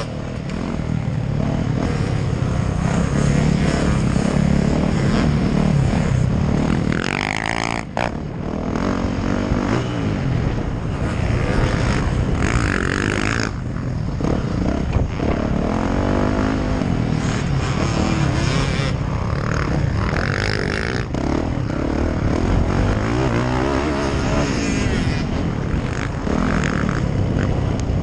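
Dirt bike engine revving up and easing off over and over at racing pace, heard close up from the rider's helmet. Its pitch climbs and drops repeatedly, with a short break about eight seconds in.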